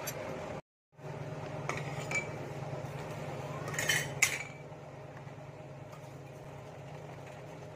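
Metal scooter CVT parts clinking against each other and the basin as they are handled and washed in gasoline. There are several sharp clinks in the first half, the loudest about four seconds in, over a steady low hum.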